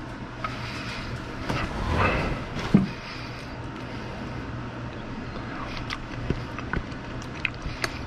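A fork clicking lightly against a dish several times over a steady low hum, with outdoor traffic noise swelling briefly about two seconds in.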